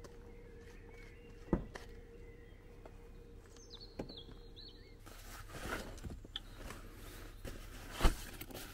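A person at an SUV: sharp clicks and knocks as its rear door is opened, with a bird chirping briefly and a faint steady hum. About halfway through, rustling and a loud knock near the end as a backpack is handled.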